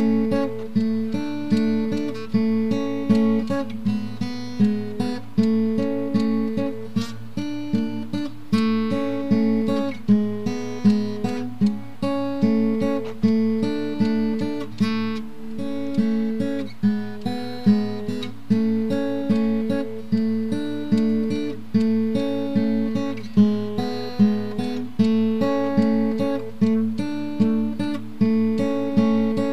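Background music: acoustic guitar playing a steady, repeating plucked pattern.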